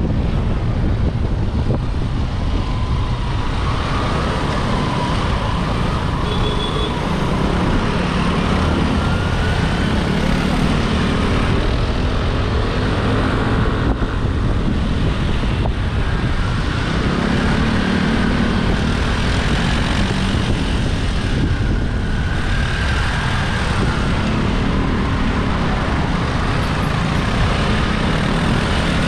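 Aprilia SR150 scooter's single-cylinder engine running under way, its pitch rising and falling in slow swells as the rider speeds up and eases off, over a steady rumble of road and traffic noise.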